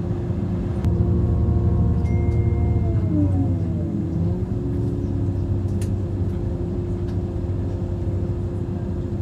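Regional train running, heard from inside the passenger car: a steady low rumble and hum from the drive and wheels, with a set of drive tones that glide down in pitch about three seconds in and then hold steady.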